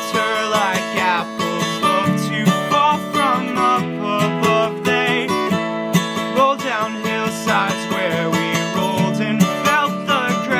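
Acoustic guitar played steadily, strummed and picked chords ringing, with a voice carrying a wavering melody over it.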